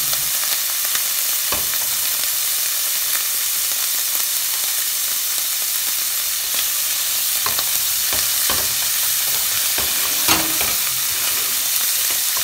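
Diced pancetta sizzling in olive oil in a stainless steel pan as it browns: a steady hiss with a few sharp clicks scattered through it.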